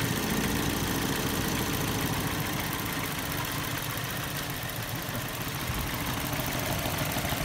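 Toyota Yaris engine idling unevenly with a misfire, one cylinder getting no spark.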